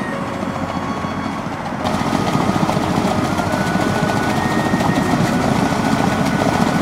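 Engine of a small weed-cutting boat running steadily as it pushes through reeds, louder from about two seconds in.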